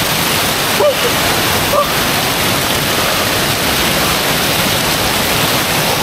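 Steady, loud rush of the Kuang Si waterfall's cascading water, with two brief faint voice sounds about one and two seconds in.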